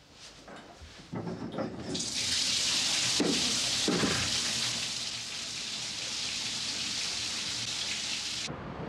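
Bath tap running hard into a bathtub: a steady rushing hiss of water that starts about two seconds in and cuts off suddenly near the end. A couple of short low sounds come in the first few seconds.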